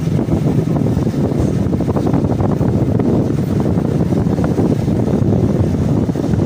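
A motor vehicle's engine running steadily while moving along a street, with wind rumbling on the microphone.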